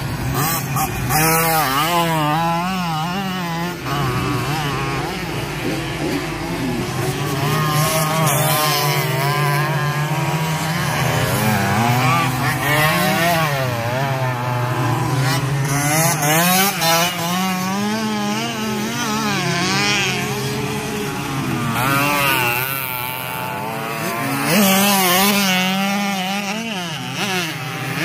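Several 50cc racing motorcycles' small two-stroke engines buzzing at high revs as they race, several at once, their pitch rising and falling again and again with the throttle and gear changes.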